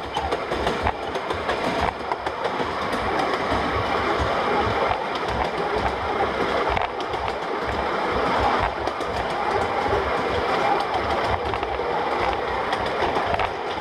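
Ride-on miniature railway train heard from on board: wheels clattering over the track's rail joints in an irregular run of knocks, over a steady running rumble.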